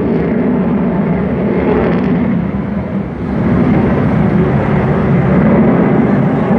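Loud, steady engine noise of an airplane in flight, dipping briefly about three seconds in.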